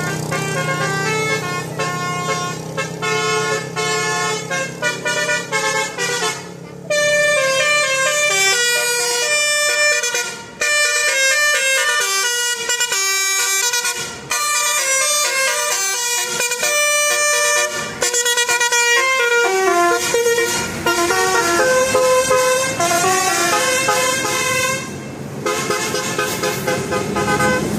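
Bus telolet horn, a multi-tone air horn playing quick melodic runs of stepped notes, loud, with a few short breaks between phrases.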